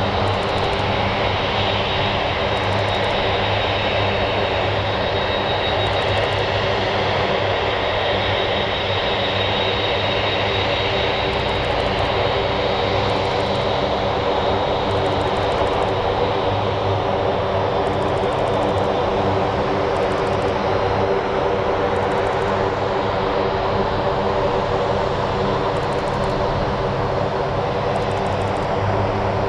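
Boeing 747-8F freighter's four GEnx-2B jet engines running steadily, with a high whine that fades after about ten seconds.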